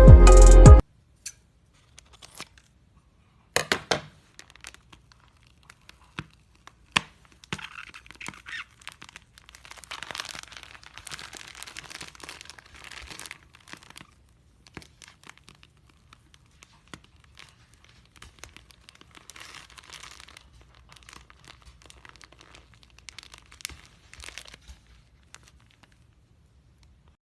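Slime and squishy toys being squeezed and pulled by hand: scattered sharp clicks and stretches of sticky, crackly crinkling.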